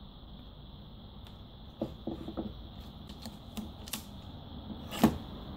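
Scattered light clicks and taps of side cutters and cable being handled at a workbench, with one sharper, louder click about five seconds in, over a faint steady high-pitched tone.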